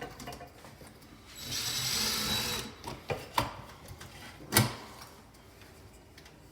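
Light fixture being taken down by hand. A scraping rasp lasts about a second and a half, then come several sharp clicks and knocks; the loudest knock falls past the middle.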